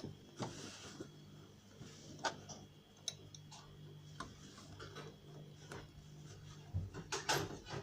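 Faint, irregular clicks and taps at the sewing machine as the fabric and zipper are set in place to start stitching, over a low steady hum.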